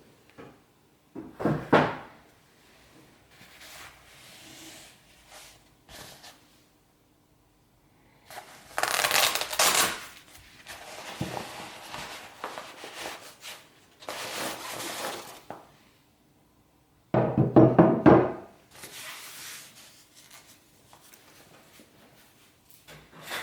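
Handling noises from unpacking an aluminium bow riser: packaging rustling in several bursts, with scattered knocks and one heavier thunk about two thirds of the way through.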